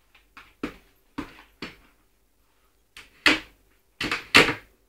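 A little poodle attacking a dead bumblebee, making a series of short, sharp noises at an irregular pace, about eight in all, the loudest in the last two seconds.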